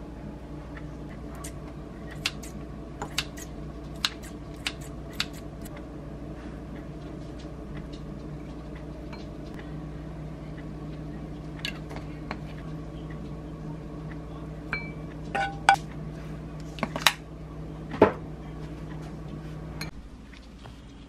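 Utensils clinking sharply against a glass mixing bowl as seasonings are added and mixed in, with a run of clinks a few seconds in and louder ones about three quarters of the way through. A steady low hum runs underneath and stops shortly before the end.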